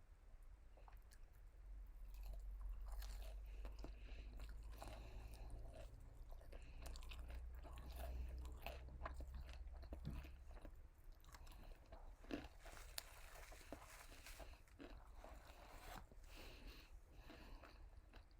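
Close-miked chewing and crunching of KFC fried food, with many small wet clicks and crackles. A low rumble sits underneath through the first half.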